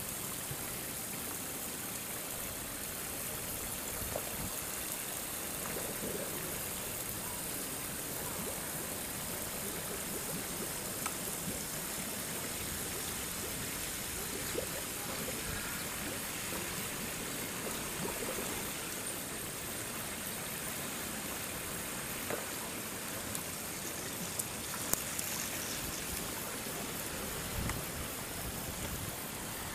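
Steady rush of running water in an Indian rhinoceros's bathing pool, with a few faint short knocks or splashes now and then.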